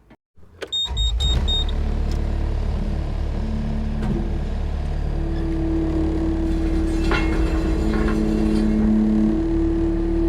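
Skid steer engine running steadily. A few short high electronic beeps sound just after it comes in, and a steady hum joins about five seconds in.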